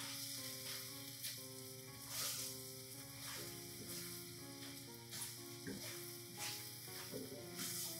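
Pad thai noodles and vegetables sizzling in a stainless steel pan on a gas burner, tossed with metal tongs as the freshly added spinach cooks down.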